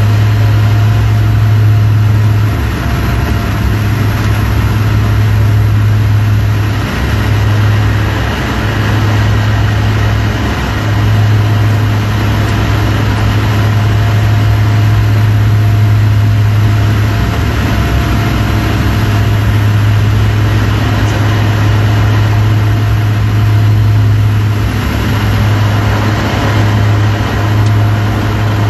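Propeller aircraft's engines and propellers heard from inside the cockpit in flight: a loud, steady drone with a strong low hum that wavers briefly a few times.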